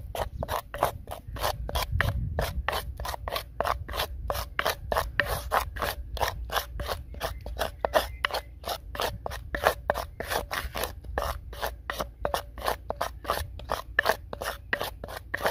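A wooden spatula scraping round an unglazed clay bowl in quick, even strokes, about four a second, as it mixes a thick spice-and-yogurt paste.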